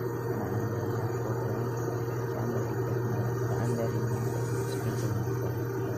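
LG inverter direct-drive washing machine running its spin cycle with a steady low hum. The spin is working after a new pressure switch (water level sensor) was fitted.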